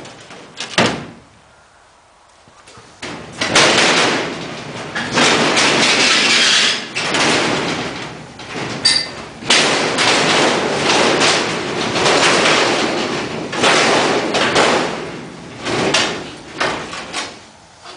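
Sheet aluminium skin being pried up and pulled off a Cessna 180 wing, the thin sheet flexing, rattling and scraping against the structure in long rough stretches, with a sharp knock about a second in.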